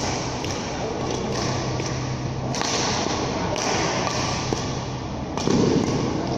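Badminton being played on an indoor court: sharp clicks of rackets striking the shuttlecock and thuds of players' footwork, with a louder burst a little after five seconds in.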